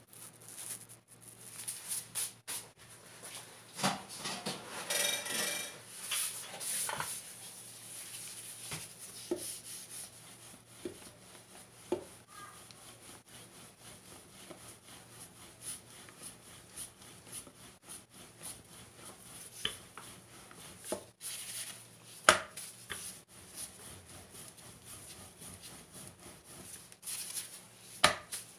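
Wooden rolling pin rolling out flour-dusted methi paratha dough on a round wooden board, with irregular rubbing and scattered clicks. There is a sharp knock of wood on wood about two-thirds of the way through and another near the end.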